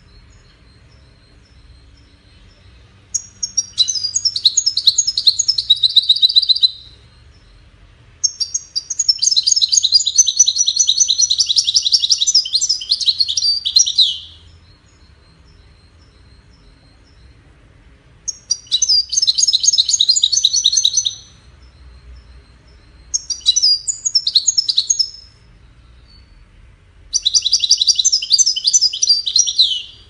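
European goldfinch singing: five bursts of rapid, high twittering song, the longest about six seconds, with pauses between them that hold faint repeated soft notes.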